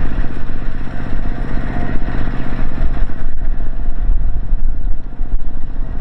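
Heavy diesel engine running steadily with a fast, even firing pulse. It sounds a little duller about halfway through.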